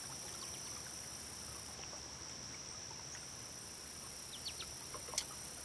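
Steady high-pitched chorus of grasshoppers buzzing in the streamside grass, with a few faint ticks near the end.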